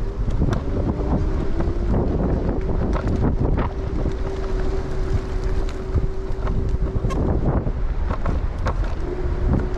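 Wind buffeting the microphone of a moving Bird electric scooter, over a steady whine from its electric motor that drops out about seven seconds in and comes back near the end. Scattered knocks and rattles run through it.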